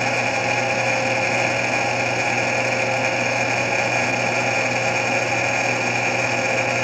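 Tsugami lathe running steadily under power feed, spinning a steel bar while a cut knurling tool's wheels cut a knurl into it: an even machine hum with several held tones.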